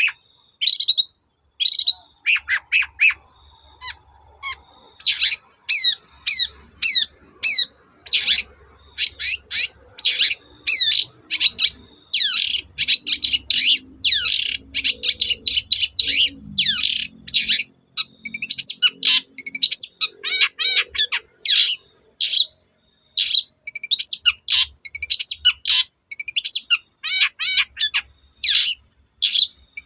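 Long-tailed shrike (cendet) singing a fast, varied song of short high notes, quick sweeps and rapid trills, with only brief pauses.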